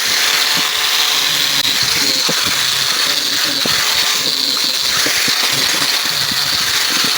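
Handheld electric power tool running steadily with a high, constant whine, cleaning up a metal door-hinge part.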